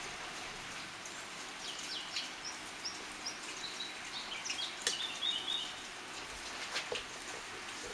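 Steady rain falling, with drops ticking sharply onto a nearby surface a few times. A small bird sings a run of short, high chirps from about a second in to the middle.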